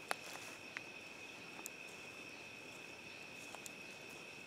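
Crickets trilling in a steady, continuous chorus, with a few faint, sharp snaps from a small fatwood campfire.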